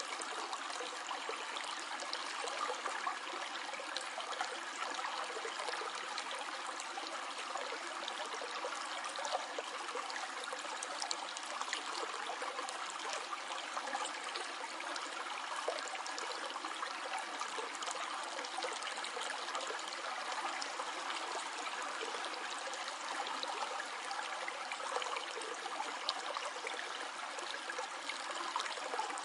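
Stream of water flowing steadily over stones, a continuous babbling and trickling.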